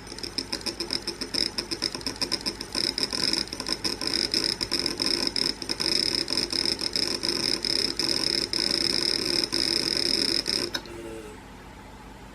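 Failed WD Red 6 TB (WD60EFRX) hard drive making a rapid stuttering, chattering buzz with a high whine as it tries and fails to initialize; the sound stops abruptly near the end.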